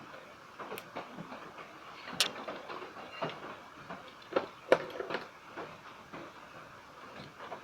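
Irregular clicks and light knocks of hands and small tools working on an amplifier, with the sharpest knocks about two seconds in and just under five seconds in, as a replacement power switch is fitted.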